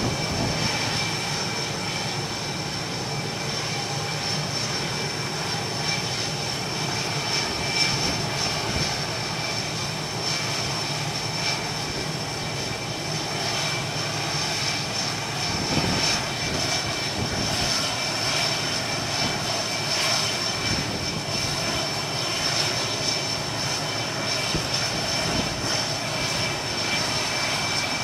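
F/A-18 Hornet jet engines running, a steady engine noise with a constant high-pitched whine, with a few brief louder peaks.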